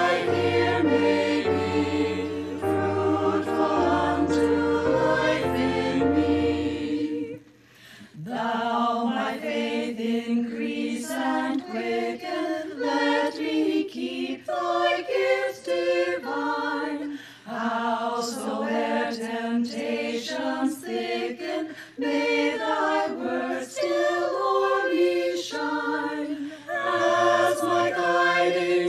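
A choir singing a hymn in several parts, with a short pause between phrases about seven seconds in.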